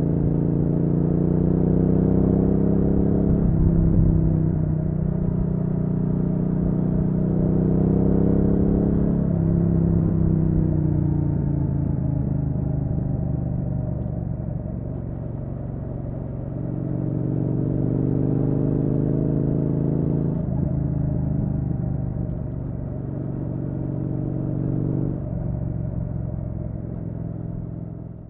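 Triumph Street Twin's 900 cc parallel-twin engine pulling hard on the road, the pitch climbing and then dropping with each gear change, about four times.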